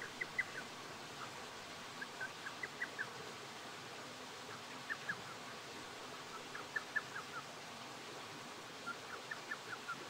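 Steady hiss of a small stream, with faint, short high chirps coming in little runs of three to five every couple of seconds.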